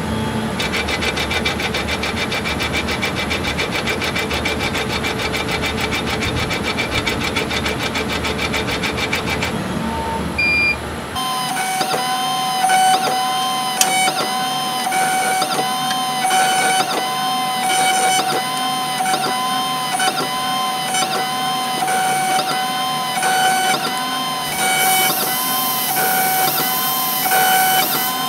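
Small CNC engraving mill running as its cutter engraves lettering into a metal part. For the first ten seconds or so it makes a rapid, even pulsing. About eleven seconds in the sound changes to a steady whine with short, repeating rising-and-falling motor tones as the machine traces the letters.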